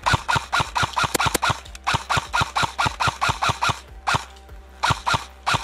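Airsoft electric gun firing on full auto: rapid sharp shots at about nine a second, in bursts of one to two seconds with short pauses between them.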